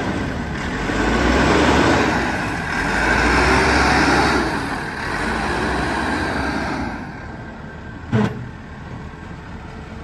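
JCB 214 Series 3 backhoe loader's diesel engine running as the machine drives and turns, louder for the first few seconds and easing off about seven seconds in. A single sharp knock about eight seconds in.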